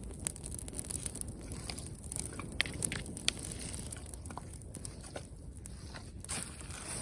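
Wood campfire crackling, with scattered sharp pops at irregular intervals.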